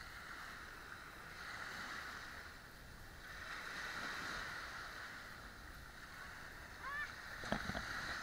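Quiet water sloshing and washing, swelling and fading every couple of seconds, with a few short rising squeaks and light knocks near the end.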